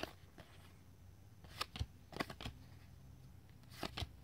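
Cardboard trading cards being flipped through by hand: a few short flicks and slides of card stock, spaced out over a low steady hum.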